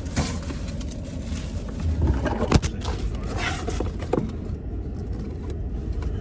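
Steady low rumble of a car, heard from inside it, with a few scrapes and a sharp click about two and a half seconds in.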